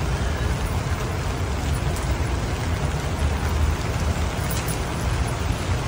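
Steady rain, with a heavy low rumble under it.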